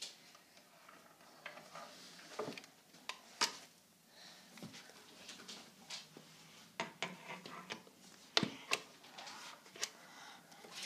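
Faint, scattered knocks, clicks and scuffs of a toddler shuffling about in oversized adult sneakers on a wooden floor.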